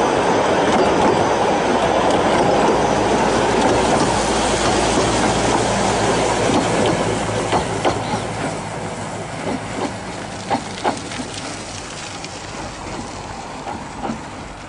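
Severn Lamb custom tram running on its track: a steady rumble of wheels on rail that fades as the tram moves away. From about halfway, sharp clicks of the wheels over the rail joints.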